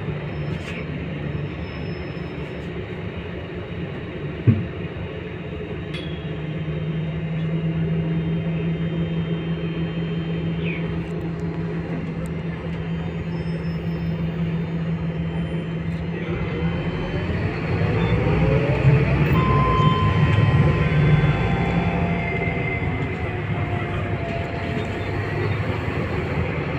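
Scania K230UB city bus heard from inside the passenger cabin while under way: a steady engine and drivetrain drone, with one sharp click a few seconds in. About two-thirds of the way through the engine note rises and grows louder as the bus accelerates, then settles back.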